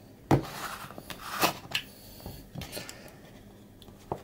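A supplement tub being handled on a countertop: a sharp knock, then rustling and small clicks as its sticker seal is taken off, and another knock near the end as the tub is set down.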